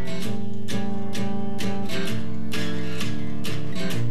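Music: an acoustic guitar strumming a steady rhythm, about two strums a second, the instrumental opening of a country-style song.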